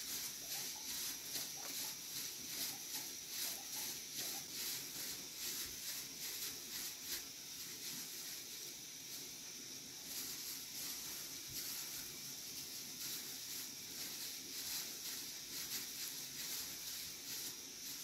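Hands in plastic gloves rolling and pressing minced-meat meatball mixture: a repeated rustling, squishing hiss that eases off for a couple of seconds midway.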